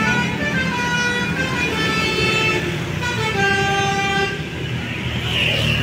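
A bus's 'telolet basuri' multi-trumpet musical horn playing a short tune of held notes that step up and down. It breaks off briefly about halfway and stops about three-quarters of the way through. A low rumble runs underneath.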